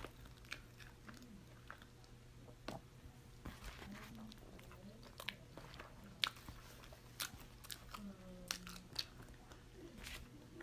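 A person chewing a mouthful of California burrito (flour tortilla filled with carne asada, fries, beans and cheese), faint, with scattered sharp mouth clicks.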